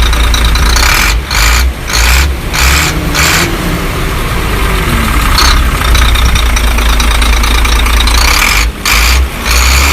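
A vehicle engine running loud, surging in repeated bursts with short breaks in the first few seconds and again near the end.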